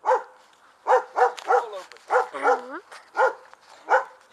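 A dog barking repeatedly: about eight short, high barks, roughly two a second, with a slightly longer one near the middle.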